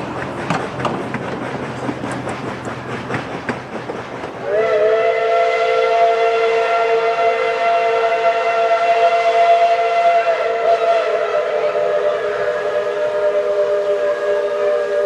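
Railroad passenger cars clattering past on the track. About four and a half seconds in, a steam locomotive's chime whistle sounds one long chord of several notes that holds to the end.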